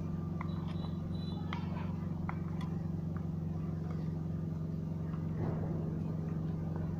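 Steady low mechanical hum of a running motor, unchanging in pitch and level, with a few faint clicks in the first couple of seconds.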